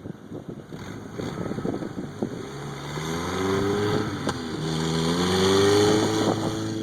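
1995 Jeep Wrangler engine revving twice under load, the pitch climbing and holding each time as it tries to pull free of deep snow. Scattered crackling comes before the first rev.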